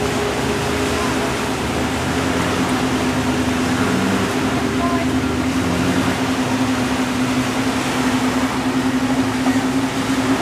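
Steady low hum of a motorboat engine running, over an even wash of noise.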